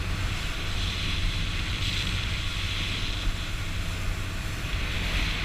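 Steady low rumble and hiss of wind buffeting the microphone on a moving boat, with the drone of the boat's motor underneath.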